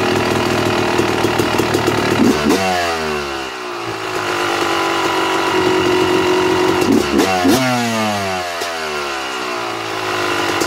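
2009 Yamaha YZ250's 249 cc single-cylinder two-stroke engine running at idle while its carburettor air screw is turned out too far, the lean side of the adjustment. The engine speed swings twice, about two seconds in and again about seven seconds in, then settles back to a steady idle.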